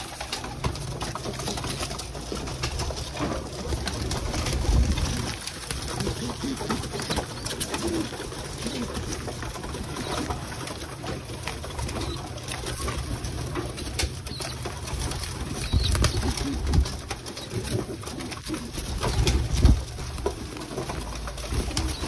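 A crowded flock of domestic pigeons cooing continuously, with wings flapping as the birds jostle over feed, and a few louder flurries of flapping.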